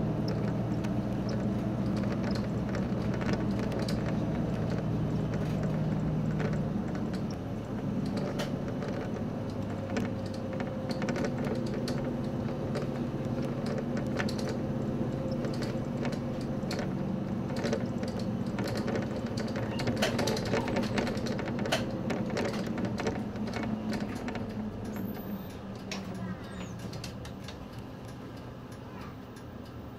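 Engine of a Nissan Space Runner city bus running as it drives, heard from the front of the cabin, with scattered sharp clicks throughout. The engine note drops about seven seconds in and fades further near the end.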